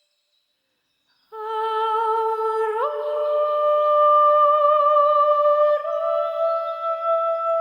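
A woman's voice humming or singing long held notes with vibrato, starting after about a second of silence and stepping up in pitch twice.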